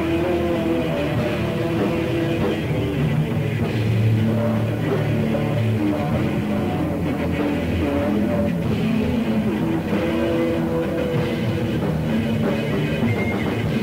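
Raw black metal with distorted guitar, drums and held keyboard chords that change every second or two. The recording sounds dull and muffled, like an old tape, with little treble.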